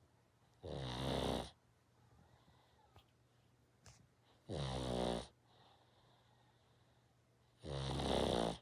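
A pug snoring in its sleep: three snores, each just under a second long, about three and a half seconds apart.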